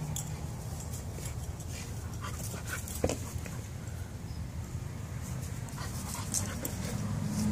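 A chow-mix dog panting as it plays with a soccer ball, with small scuffs and clicks and one sharp knock about three seconds in.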